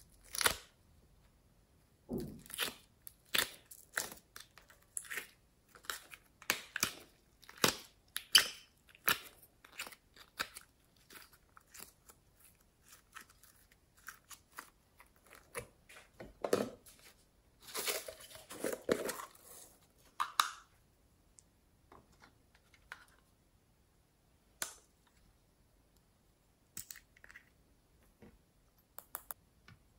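Small plastic makeup cases being handled and twisted open by hand: a quick run of sharp plastic clicks and crackles for the first twenty seconds or so, then only a few scattered clicks.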